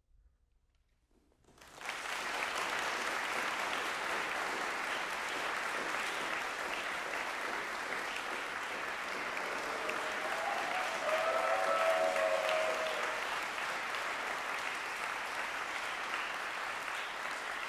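Concert-hall audience applauding at the close of a woodwind quintet piece. The applause begins after about a second and a half of silence and keeps up steadily. A brief cheer rises over the clapping about ten seconds in.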